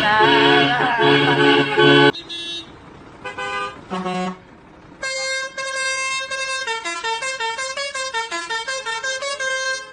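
Truck horns in a run of edited clips: a loud held horn chord for about two seconds, a few short toots after a sudden cut, then from about five seconds in a musical horn playing a quick tune of short stepping notes.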